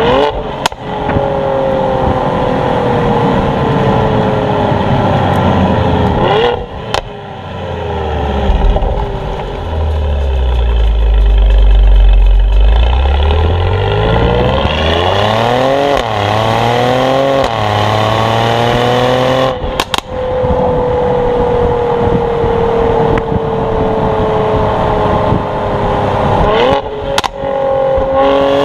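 Mercedes-AMG GLE 43's 3.0-litre biturbo V6 exhaust while driving. The engine note sinks slowly for long stretches, drops to a deep low rumble, then climbs steeply in steps as it revs up near the middle. A few sharp exhaust cracks and pops come along the way.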